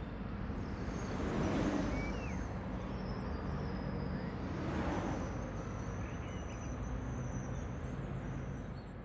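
Street traffic noise, with cars passing about a second and a half in and again around five seconds in.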